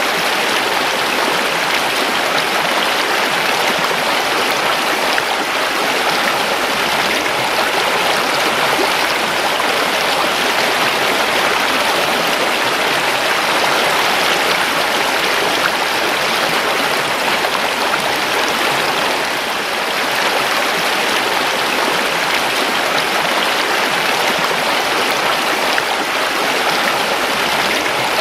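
Creek water rushing and splashing over stones in a steady, even flow.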